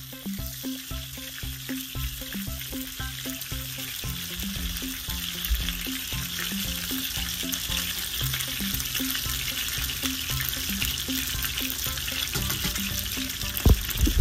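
Pieces of fermented salmon sizzling steadily as they pan-fry in oil in a nonstick wok, with one sharp knock near the end.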